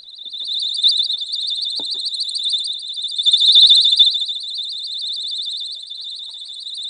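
Electronic alarm sounding a shrill, rapidly pulsing high tone. It grows louder as it comes out of a fiberglass-insulated bucket, is loudest about three to four seconds in, then softens as it is set into a cellulose-insulated bucket. A few light knocks come from handling.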